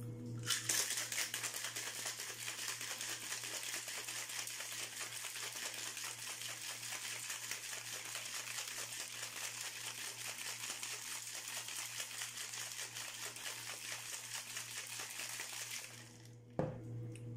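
Ice rattling hard inside a stainless steel cocktail shaker being shaken fast and steadily, stopping about a second before the end.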